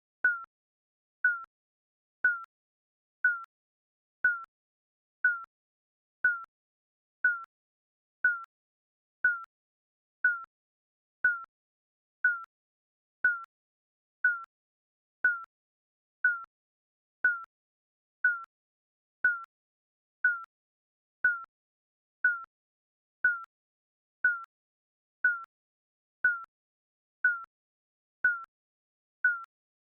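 Digital countdown timer beeping once a second: a short, high-pitched electronic beep at the same pitch each time, with silence between.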